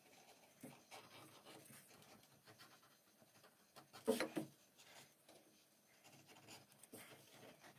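Faint scratchy scraping of a hand edge beveler shaving along the edge of a thick leather panel, with a brief louder rasp about four seconds in.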